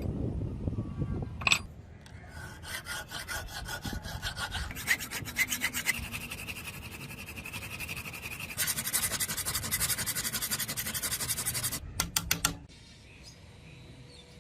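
Fast, even back-and-forth rubbing strokes of steel being shaped by hand with an abrasive. The strokes get louder a few seconds before the end, then stop suddenly after a few sharper strokes.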